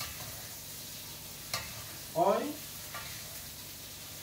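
Blended chili-onion sambal paste sizzling in oil in a wok on a gas flame, stirred with a spatula; a single sharp knock of the spatula on the wok about a second and a half in.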